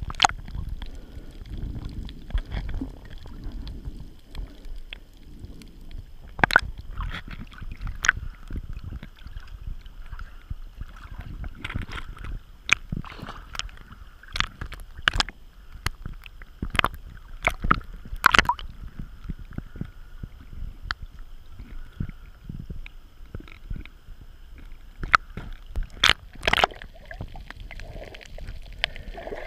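Water sloshing and gurgling around a small camera bobbing at the surface, with sharp clicks and splashes every second or so as small waves slap the camera and it dips in and out of the water.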